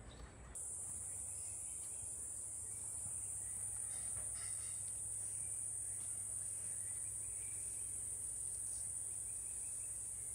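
Steady, high-pitched drone of a tropical insect chorus, beginning abruptly about half a second in.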